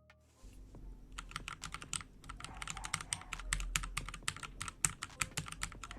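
Fast typing on a mechanical keyboard fitted with HyperX Pudding double-shot PBT keycaps, a rapid, uneven run of key clicks that starts about a second in.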